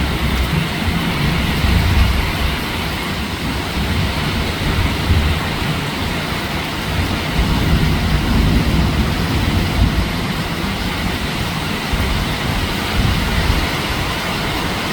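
Steady heavy rain with a low, rolling rumble of distant thunder that swells and fades throughout.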